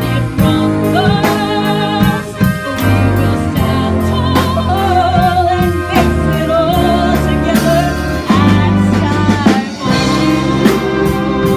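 A woman singing with vibrato, in phrases, over a live band of saxophones, clarinets, tuba, guitar and drum kit. The drums keep a steady beat of about two strokes a second.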